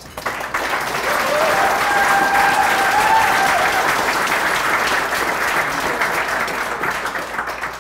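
Audience applauding, dying away near the end, with one voice's long held cheer rising slightly in the middle of it.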